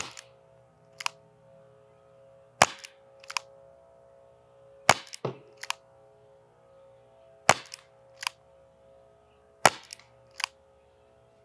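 Rekt Jury CO2-powered foam-dart revolver firing five aimed shots about two and a half seconds apart, each a sharp pop followed by a fainter click a fraction of a second later.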